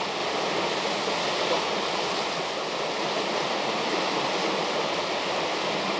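River rapids rushing steadily, running high with spring flood water.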